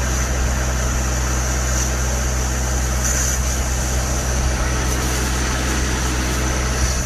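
Steady rush of water flowing down a gunite-lined ditch into the forebay of a small hydroelectric plant: a constant low rumble with hiss over it.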